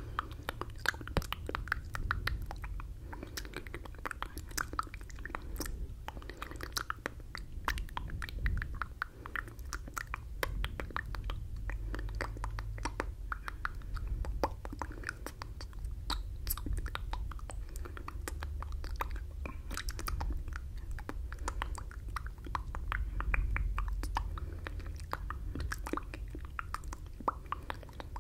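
Close-miked wet mouth sounds, dense clicks and smacks without words, muffled by hands cupped around a furry-windscreen microphone (the ASMR 'fishbowl effect'), over a low rumble.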